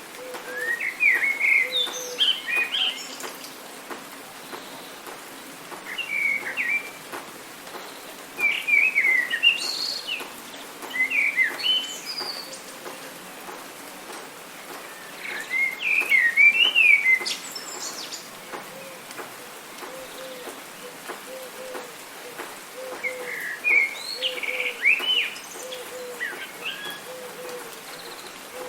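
Songbirds singing in bursts of quick chirps and whistles, about six phrases with pauses between them, over a steady hiss of rain. A soft low note repeats underneath.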